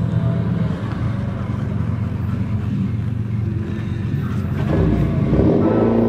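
Diesel locomotive approaching, its engine a steady low rumble. About five seconds in, a louder pitched sound swells in over it.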